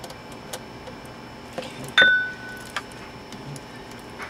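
Small clicks of handling a cassette deck mechanism, then one sharp metallic clink about two seconds in, ringing briefly, as a small metal tool or part strikes metal.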